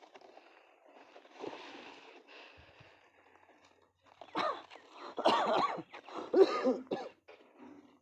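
A person coughs in three loud bouts in the second half. Faint rustling of cardboard and plastic packaging comes before the coughs.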